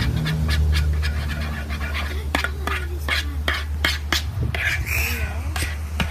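A spoon stirring thick slime in a plastic bowl: quick scrapes and clicks against the bowl, several a second, over a steady low hum.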